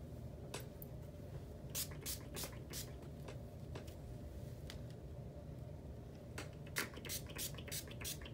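A L'Oréal heat-protectant pump spray bottle misting onto hair: more than a dozen short sprays, fired in quick runs of several at a time.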